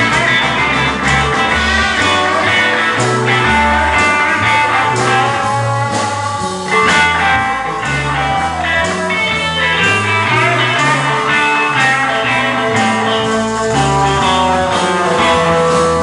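Live blues band playing, a bass line stepping from note to note under a lead line that bends some of its notes.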